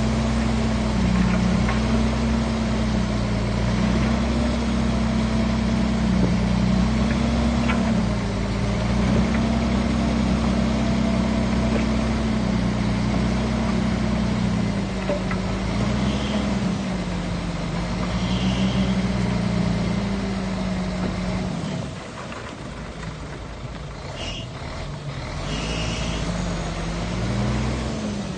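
Shantui bulldozer's heavy diesel engine running under load, its note rising and falling as the load changes. About three-quarters of the way through it drops to a lower, quieter note, then climbs back near the end.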